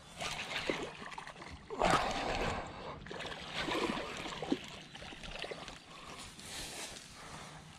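A hooked fish splashing at the water's surface as it is reeled in to the bank. The biggest splash comes about two seconds in, with smaller splashes after it.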